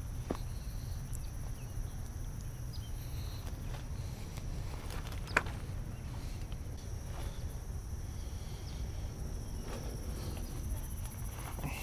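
Insects droning steadily at a high pitch, with footsteps on dry ground and a sharp click about five seconds in.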